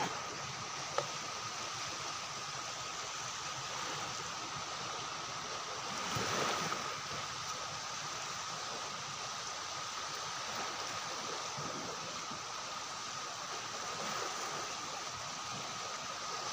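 Steady rushing water noise with a thin, steady high-pitched tone running through it. There is a brief swell in the noise about six seconds in.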